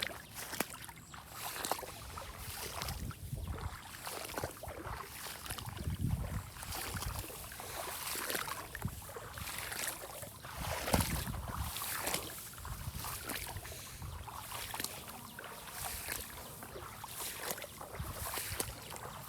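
Irregular splashing and sloshing of water, a string of short uneven strokes.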